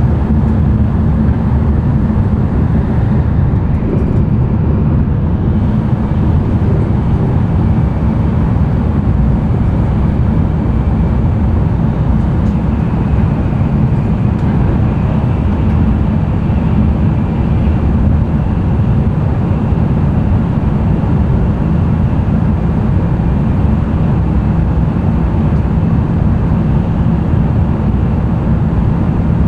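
N700-series Tokaido Shinkansen running at speed, heard inside the passenger cabin: a steady low rumble from the wheels and running gear. A faint high whine joins it about twelve seconds in.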